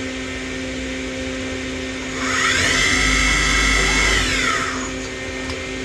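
CNC Swiss lathe spindle spinning up with a rising whine, holding speed for about two seconds, then winding back down. A steady machine hum runs underneath.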